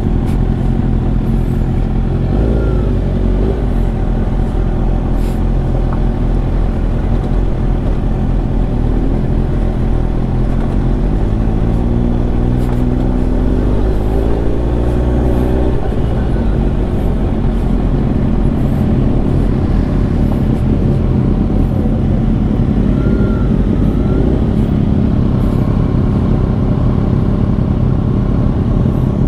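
Superbike engines running at low speed over a rough dirt track. About eleven seconds in, an engine revs up with a steadily rising pitch for several seconds, then drops back suddenly.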